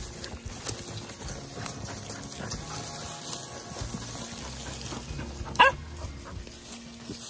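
Several hunting dogs sniffing and scrabbling with their noses and paws in dry leaves at the mouth of a burrow. About five and a half seconds in, one dog gives a single sharp yelp.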